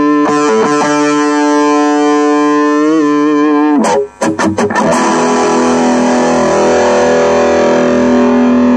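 Overdriven electric guitar, an Epiphone DC Pro through an Orange Micro Terror head and a Vox BC108 cabinet. A held chord rings out, then a few quick choppy strums come about four seconds in, and a new chord rings on.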